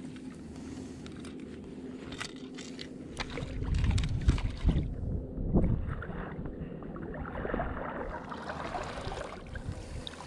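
Water splashing and sloshing as a just-caught smallmouth bass is landed and handled, with scattered knocks and clicks. A run of heavy low thumps and splashes comes about four to six seconds in.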